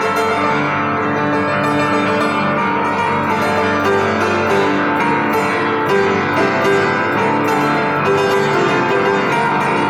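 Piano strings ringing: many notes sustaining together in a dense wash, with frequent quick attacks throughout.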